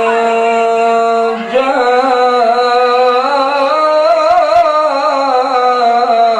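A man reciting the Quran in the melodic, sung tilawah style into a microphone: a long held note, a short break for breath about a second and a half in, then a higher, wavering, ornamented line.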